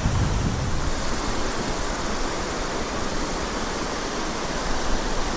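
Steady rush of a mountain stream's flowing water, with a little low wind rumble on the microphone in the first moment.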